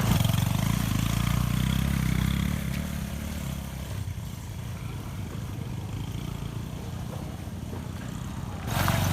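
Motorcycle engine idling with a low, steady tone, louder for the first couple of seconds and then quieter. A broader rush of noise cuts in suddenly near the end.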